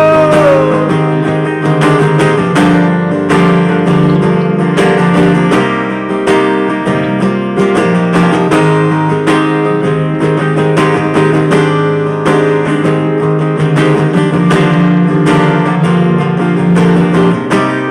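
Live steel-string acoustic guitar strumming chords in a steady rhythm, with a second amplified string instrument holding lower notes underneath: an instrumental break in a rock song. A held sung note trails off about half a second in.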